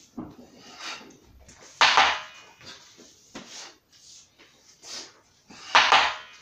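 Short, noisy rushes of movement from a wooden-staff drill, a few each second. The two loudest come about two and six seconds in, with softer ones between.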